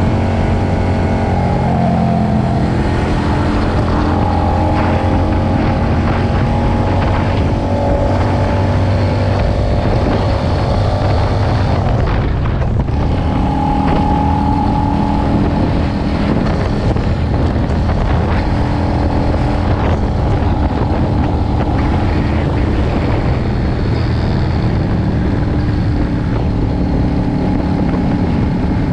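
Cruiser motorcycle engine running under way, with wind buffeting the microphone. The engine note shifts in pitch as the rider works the throttle, dipping briefly about twelve seconds in before picking up again.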